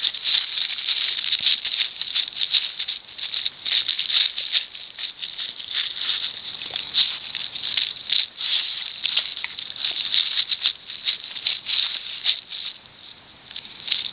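Golden retriever chewing and licking a taco up close: quick irregular wet smacks and clicks of jaws and tongue, easing briefly near the end.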